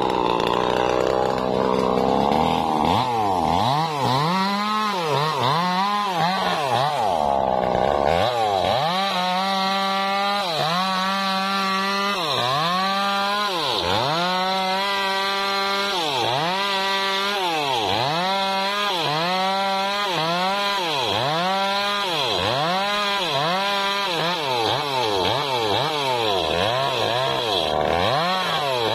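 Petrol chainsaw cutting through a sengon log. The engine runs at high revs at first, then from about three seconds in its pitch rises and falls about once a second as the saw is worked through the cut.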